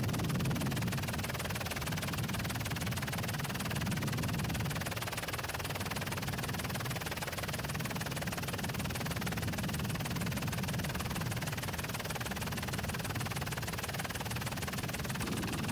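Steady drone of an aircraft's engine heard from inside the cabin, a low rumble that swells and eases slightly every second or two.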